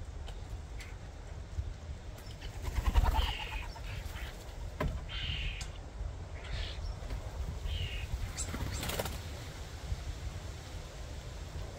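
Short bird calls repeating every second or two over a steady low outdoor rumble, with a brief louder noise about three seconds in.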